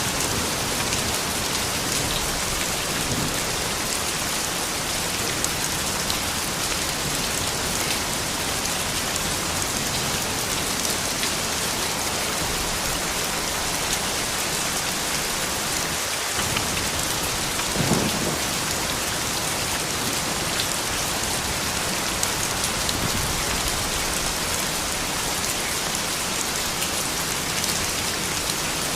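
Steady, gentle rain falling, an even patter of drops. One brief louder sound stands out about two-thirds of the way through.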